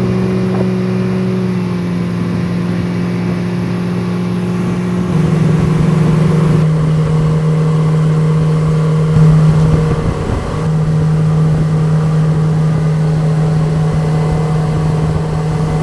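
Small speedboat's engine running steadily as the boat gets under way. Its pitch steps down a little about five seconds in and wavers briefly near ten seconds.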